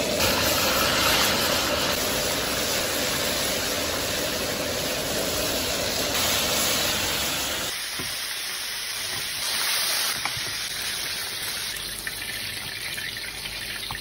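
Battered chicken drumsticks deep-frying in hot oil in a wok for their second fry: a dense, steady sizzle. About eight seconds in it turns thinner and quieter, with a brief louder swell around ten seconds.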